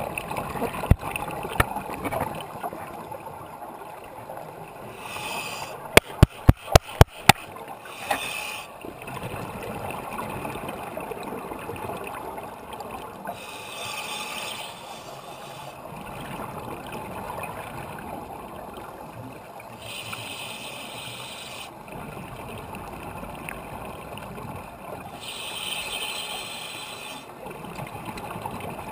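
Underwater sound through a GoPro housing: a scuba diver's exhaled regulator bubbles, gurgling in bursts of about two seconds, roughly every six seconds, over a steady hiss. About six seconds in, a quick run of about seven sharp clicks.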